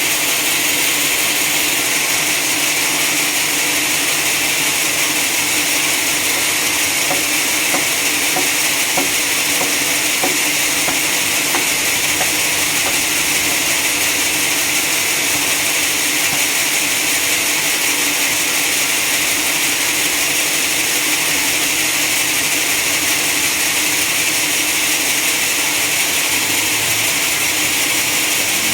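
Sawmill saw and machinery running steadily, a loud, even hissing whine with faint ticks scattered in the first half.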